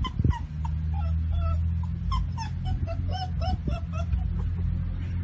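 Dog whimpering and whining: a string of short, high squeaks, a few each second, over a steady low hum.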